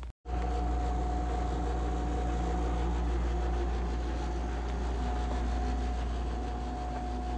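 Steady low machine hum with a constant thin whine above it, starting abruptly just after a brief dropout and holding unchanged throughout.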